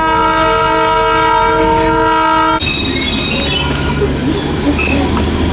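Darjeeling Himalayan Railway toy train locomotive sounding one long, steady horn blast that cuts off suddenly about two and a half seconds in. After it come the rumble of the moving train and faint squealing from the wheels.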